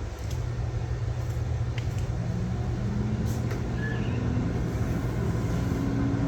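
Whall 6.2-quart air fryer running just after being switched on: a steady fan whir with a low hum.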